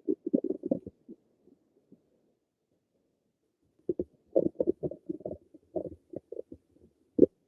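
Stomach gurgling: a short run of gurgles at the start, a pause of about three seconds, then a longer irregular run of gurgles and one sharper, louder gurgle near the end.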